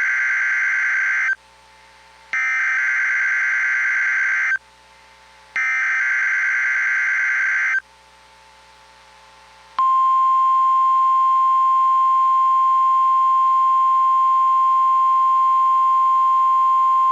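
NOAA Weather Radio Emergency Alert System signal for a practice tornado warning: the SAME digital header's warbling data bursts sound three times with about a second of quiet between them, the first already underway, then about ten seconds in the steady 1050 Hz weather-radio warning alarm tone starts as one long held beep.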